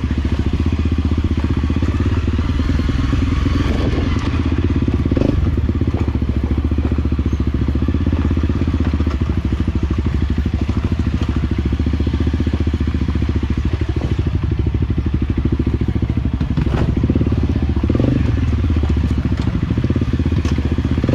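Enduro dirt bike engine running steadily, with a few brief knocks and clatters from the bike over the trail.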